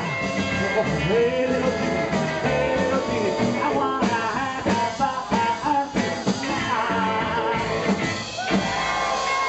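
Live rock and roll band playing: a man singing over acoustic and electric guitars and drums.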